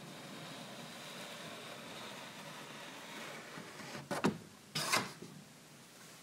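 A paper picture card being slid out of a wooden kamishibai theatre frame: a steady faint rustling hiss, then two sharp knocks a little over four and five seconds in.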